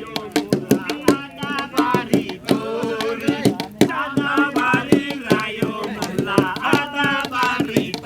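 Folk singing with a quick, steady percussive beat of sharp strikes under the voices.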